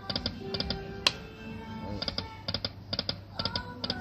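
Lightning Link poker machine's electronic game sounds: quick high ticks in threes, about two groups a second, over short electronic tones, with one sharp click about a second in.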